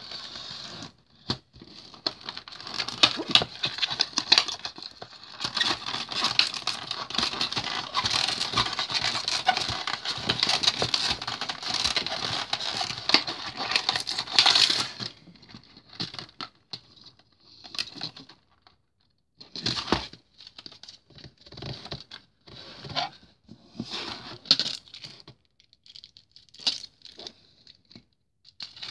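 Cardboard box and clear plastic packaging being opened and handled. Dense crinkling and rustling lasts for about the first fifteen seconds, then gives way to scattered short rustles and clicks as the plastic tray is moved about.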